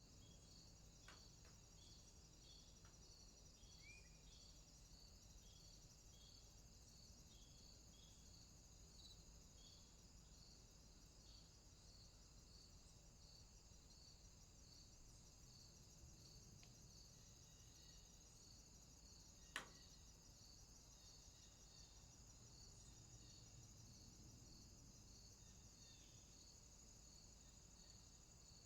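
Faint outdoor ambience of crickets: evenly spaced chirps repeat over a continuous high insect trill. A single sharp click comes about two-thirds of the way through.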